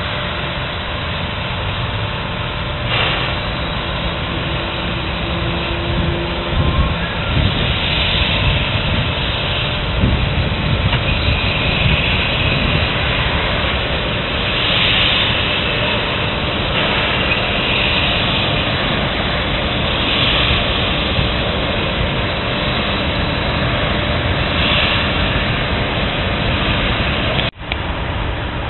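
Two steam locomotives working slowly together at the head of a train: a steady low rumble with short bursts of steam hiss every few seconds. The sound cuts out briefly near the end.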